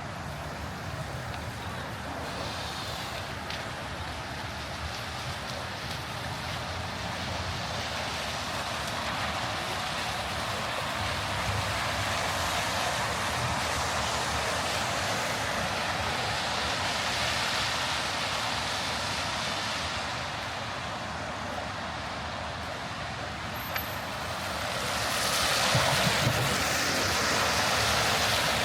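City traffic on wet streets: a steady hiss of tyres on wet pavement as vehicles pass, swelling in the middle and loudest near the end.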